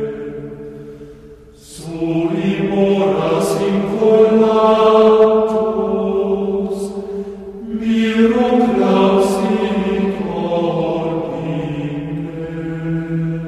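Chanted vocal music: voices sing slow phrases on long held notes. A new phrase begins about two seconds in and another just before eight seconds, and it fades toward the end.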